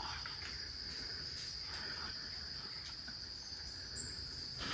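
Steady, high-pitched trilling of a cricket chorus, with a brief higher chirp near the end.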